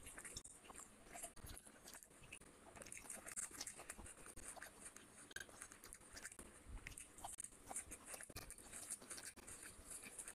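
Quiet, close-up chewing of a mouthful of rice and fish curry, with many small wet clicks and smacks of the mouth.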